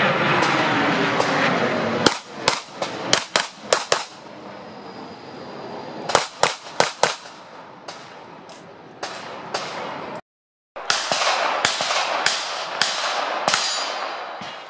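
Handgun fire on a practical shooting range: quick strings of sharp shots, several a second, coming in repeated bursts with short echoes. The first two seconds hold a steady rushing noise.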